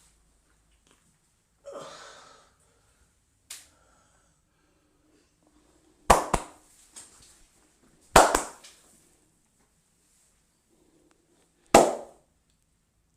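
Sharp hand smacks from a barber's head massage: two quick double smacks, then a single one.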